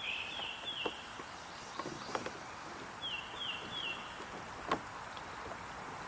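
A bird singing phrases of three short down-slurred whistled notes, about a third of a second apart, once near the start and again at about three seconds, over a steady high insect drone. A few soft knocks and one sharp click just under five seconds in.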